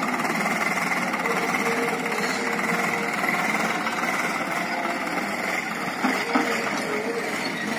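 Swaraj 744 FE tractor's three-cylinder diesel engine running steadily as it drives across a field pulling a rear-mounted rotavator.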